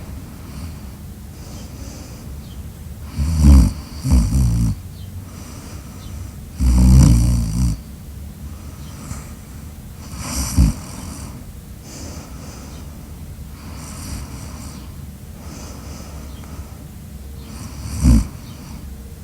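Loud snoring at uneven intervals: two short snores close together about three seconds in, a longer one near seven seconds, another around ten, then a lull of softer breathing before one last sharp snore near the end.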